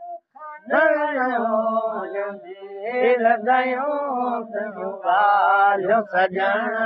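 An elderly man singing a Sindhi maulood, a devotional praise poem, unaccompanied in long wavering chanted phrases, with a short breath about half a second in.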